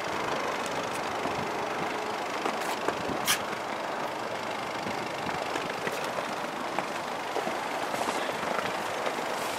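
The 2013 Audi Q5's 2.0-litre turbo four-cylinder idling, heard from behind the SUV, under steady wind noise on the microphone. A sharp click about three seconds in.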